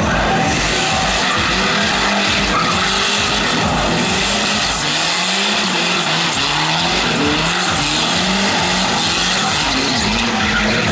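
Car engine revving hard while the tyres squeal and skid, as in a stunt-show burnout or drift. The engine note climbs again and again in short rises over a steady hiss of tyre noise.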